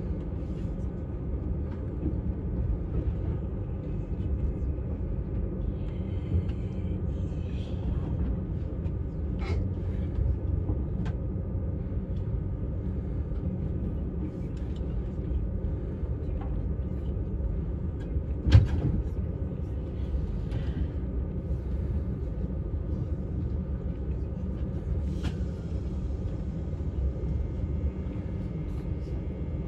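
Steady low running rumble inside a moving vehicle, with scattered light clicks and one sharper knock a little past halfway.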